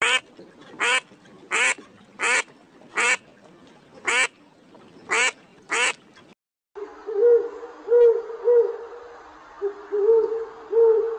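Eight short, harsh quacking calls from a waterfowl, evenly spaced under a second apart. After a brief gap, an owl gives a run of low hoots, some in quick pairs.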